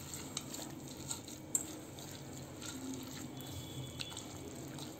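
Hands mashing boiled, chopped banana blossom in a stainless steel bowl: faint wet squelching with scattered small clicks, and one sharper click about one and a half seconds in.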